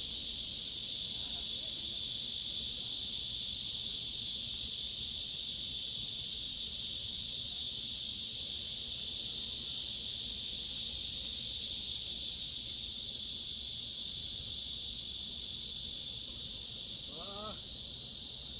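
Cicadas buzzing in a steady, unbroken high-pitched drone with no pulsing. A faint short warbling call comes through near the end.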